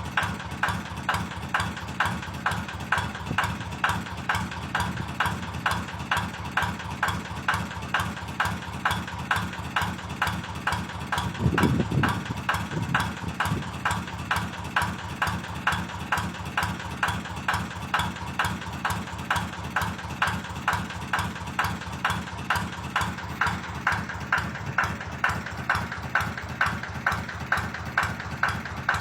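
Kubota diesel engine of a rice-field tractor idling steadily with an even, regular beat. A brief lower-pitched sound cuts in about twelve seconds in.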